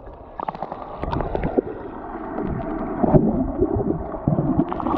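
Muffled underwater sound of the sea picked up by a submerged phone microphone: gurgling bubbles and water movement with irregular small knocks, over a faint steady hum.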